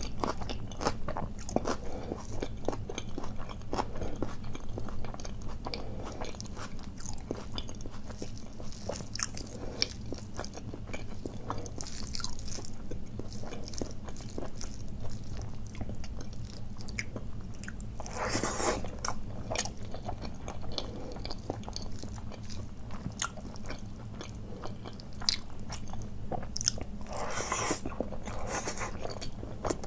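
A person biting and chewing crunchy food, with many small crunches and clicks. Two longer, louder crunching stretches come about 18 and 27 seconds in.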